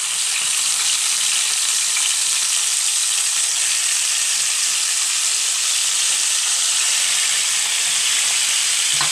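Raw chicken pieces sizzling in a hot pan with garlic and onion: a steady frying hiss.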